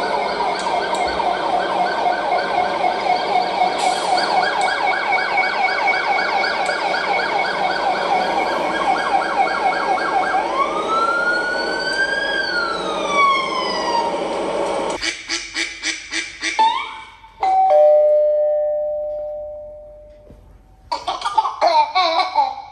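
Emergency-vehicle siren sound effect played through a small Bluetooth speaker. For about ten seconds it gives a fast warbling yelp. Then comes a slower wail that rises and falls, followed by a string of short pulses and a steady two-note tone that fades away, and a burst of rapid chirps starts near the end.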